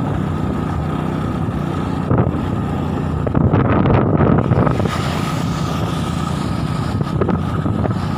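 Motorcycle running at riding speed, with wind rushing over the microphone; the wind noise swells louder for about a second midway.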